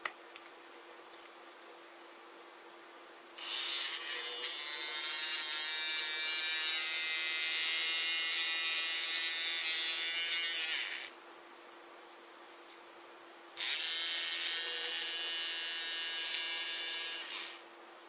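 Small battery-powered electric motor of a toy submarine's propeller engine unit spinning up with a steady whine, run twice: about seven seconds, then about four seconds, each switching on and off abruptly.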